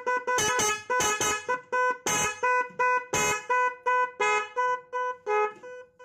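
LED magic horn, an electronic musical car horn, playing a tune of short stepped notes through its horn speaker, about three notes a second. The notes fade and break off near the end.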